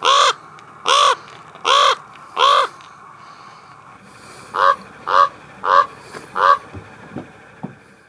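Common raven calling raucously: four hoarse caws about a second apart, then after a short pause four shorter caws in quicker succession, followed by a few faint low clicks near the end.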